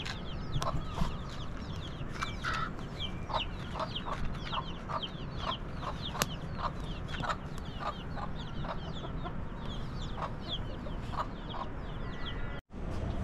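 Chickens clucking in short, repeated notes, over a steady chorus of high, quick chirps from small birds.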